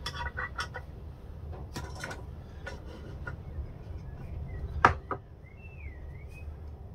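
Wooden jig blocks and a screwdriver handled on a plywood workbench: scattered light clicks and knocks, the sharpest one about five seconds in as the screwdriver is put down on the bench.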